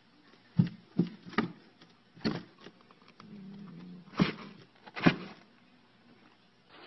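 A cat inside a cardboard box swatting at something poking in through a hole in the top, its blows landing on the cardboard as about six sharp, irregular thumps.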